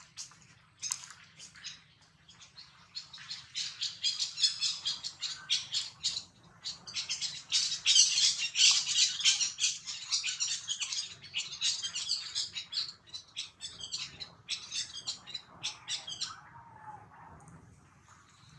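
Rapid, high-pitched animal chirps and squeaks, many short notes in quick succession. They are loudest around the middle and die away a couple of seconds before the end.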